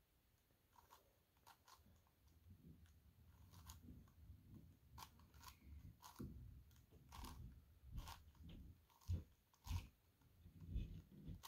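A 5x5 dodecahedron twisty puzzle (a Gigaminx) being turned by hand: faint, irregular clicks and crunches of its plastic layers, with a few louder clacks near the end.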